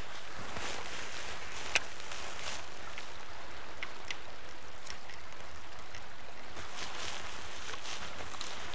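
Steady rush of flowing river water, with a few faint clicks and one sharper click about two seconds in.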